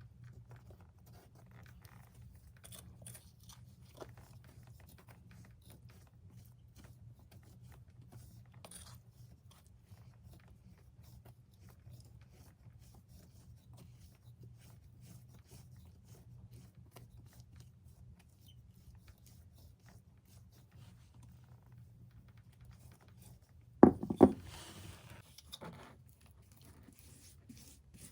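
Quiet handling noises, small scrapes, crunches and light clicks over a low steady hum, then a sudden loud clatter of two or three sharp knocks about 24 seconds in.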